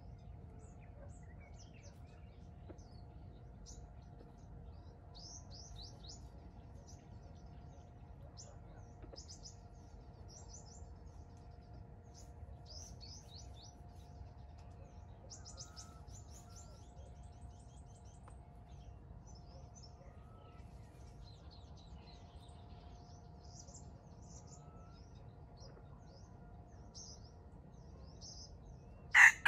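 Faint, scattered chirps of small songbirds over a low steady hum, then right at the very end a loud junglefowl rooster crow begins.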